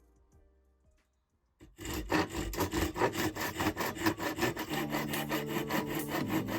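Hand saw cutting hard oak, starting after a short pause about a second and a half in with quick, even back-and-forth strokes.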